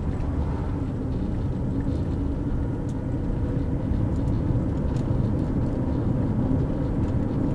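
Steady car cabin noise from a car being driven along: a low engine and tyre rumble that stays even throughout.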